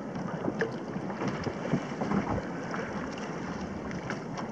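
Wind buffeting the microphone over choppy sea water lapping and splashing against a kayak, with scattered small splashes and knocks.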